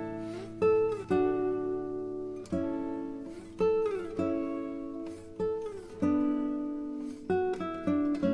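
Background music: an acoustic guitar playing slow chords, each struck and left to ring.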